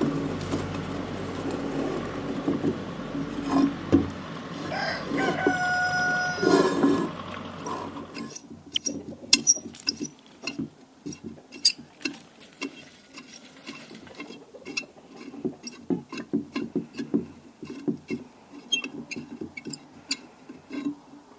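A rooster crows about five to six seconds in, over a steady low mechanical hum. The hum stops about eight seconds in and gives way to a long run of irregular sharp clicks and knocks.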